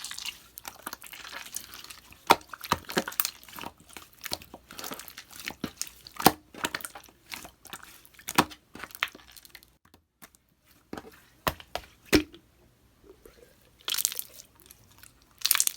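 Mixed clear slime being handled and squished: irregular sticky pops and crackling clicks as trapped air bubbles burst. There is a brief lull partway through, and a louder burst of crackling near the end.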